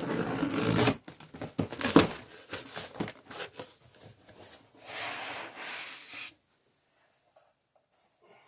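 Cardboard shipping box being unpacked: a loud tearing rip in the first second, then crackling, knocks and rustling of cardboard flaps and foam packing, and a longer scraping rub about five seconds in.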